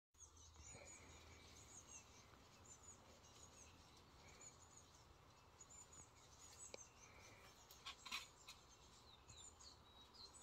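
Faint birds chirping and twittering over quiet outdoor ambience, with a few soft clicks about eight seconds in.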